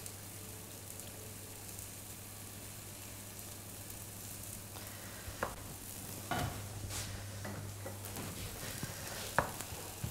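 Sauce and macaroni sizzling quietly in a frying pan, over a steady low hum. From about halfway there are scattered knocks and scrapes of a wooden spoon stirring the pasta against the pan.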